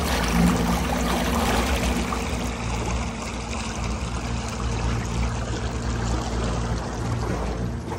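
Running water, a steady rushing and trickling, with a low steady hum underneath.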